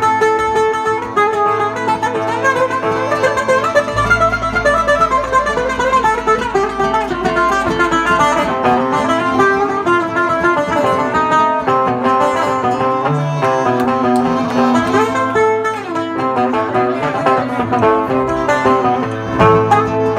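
Oud and acoustic guitar playing an instrumental passage together, the oud carrying a quick, busy melody over the guitar's accompaniment.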